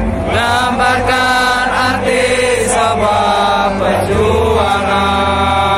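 Football supporters singing the club anthem together, many voices chanting in unison over a steady low rumble.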